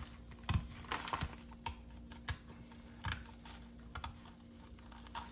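Kitchen shears snipping through a flounder's rib bones along the spine, a series of irregular sharp clicks about every half second.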